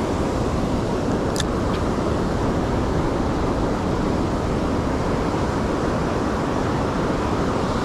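Steady roar of ocean surf with wind buffeting the microphone, with one brief high click about a second and a half in.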